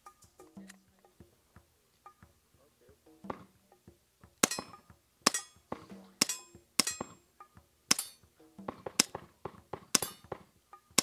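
A suppressed semi-automatic pistol firing a steady string of about seven shots, roughly one a second, beginning about four seconds in. Each shot is a sharp crack with a short ringing tail.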